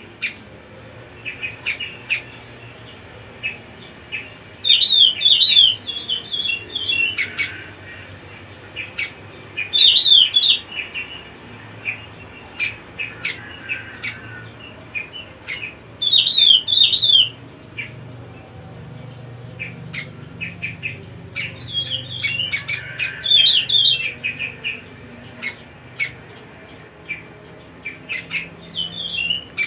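Cucak rumbai singing: four loud bursts of fast, chattering, warbling notes, roughly every six seconds, with scattered short chirps in between.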